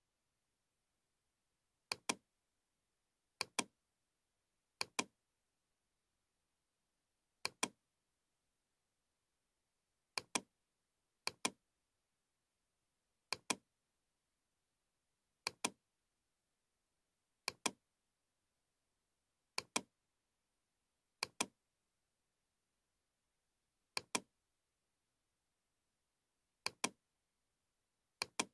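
Computer mouse clicks: about fourteen short click pairs, each a quick press and release, spaced irregularly a second or a few seconds apart, with dead silence between. They come from picking edges one after another in the CAD program.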